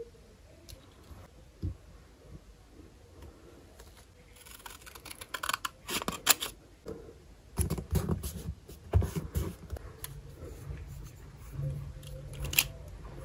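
Scissors snipping through a small piece of paper in a run of quick cuts, after a few quiet seconds of handling. A single sharp click near the end.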